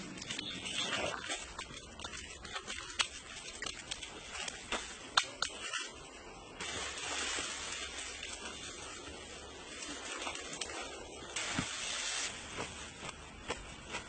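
Hands scooping and scraping loose dry soil and handling mud, heard as scattered scrapes, clicks and taps over an outdoor noise bed, with a stretch of steady hiss in the middle.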